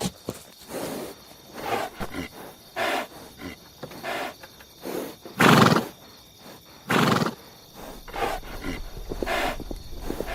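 Horse calling in a series of short neighs and whinnies, the two loudest about halfway through.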